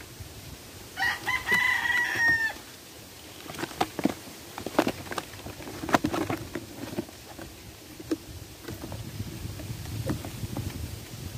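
A rooster crows once, a short crow about a second in. Then come scattered sharp clicks and knocks of hands folding and pressing the flaps of a corrugated plastic carrying box.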